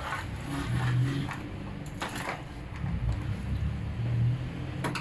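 A few light knocks and clunks as a motorcycle cylinder head and small metal parts are handled and set down on a workbench, over a continuous low rumble.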